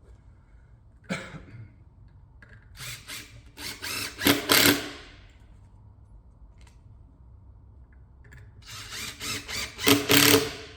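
Power drill-driver with a PZ2 bit driving 30mm screws into pre-drilled holes, two screws in turn. Each run builds and is loudest at the end as the screw seats.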